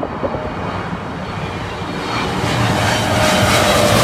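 Boeing 777-300ER's GE90 turbofan engines on low final approach, growing louder from about halfway through as the jet comes in overhead: a swelling rush with a thin, steady high whine from the fans.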